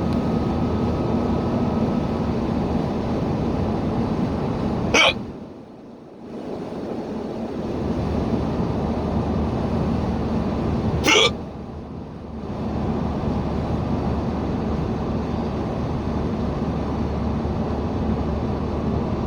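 A person hiccuping twice, about six seconds apart, over the steady road and engine noise inside a moving car.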